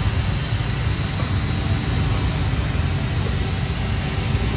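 Steady rumble of street traffic and vehicle engines, with no single event standing out.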